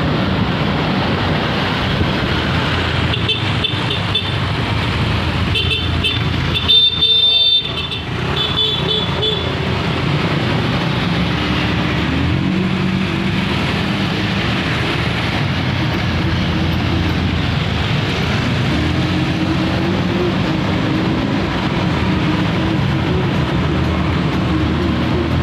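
Road traffic with engines running, and a vehicle horn sounding a series of toots between about three and nine seconds in, the loudest near seven seconds.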